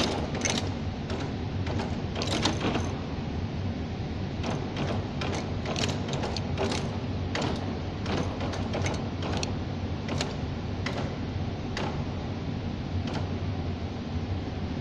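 Tea bag packing machine running: a steady mechanical hum with a sharp clack from its cams and levers roughly every two-thirds of a second as it turns out bags.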